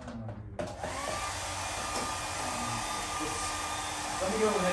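Hand-held hair dryer switched on about half a second in and blowing steadily, drying wet watercolor paint.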